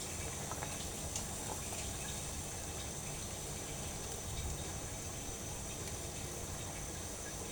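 Sugar syrup boiling in a pot, a steady bubbling hiss.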